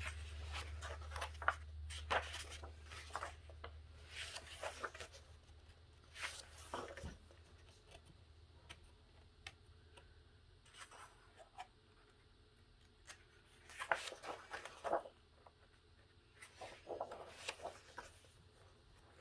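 Pages of a coloring book with fairly thick paper being turned by hand, paper rustling and swishing in several short bursts with pauses between them. A low hum underneath fades out in the first several seconds.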